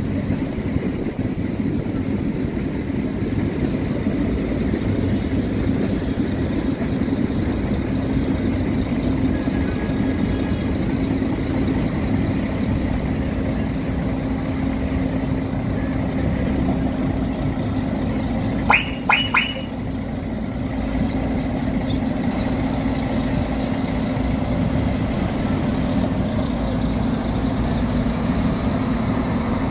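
Steady running drone of a bus engine, with three short high-pitched beeps in quick succession about two-thirds of the way through.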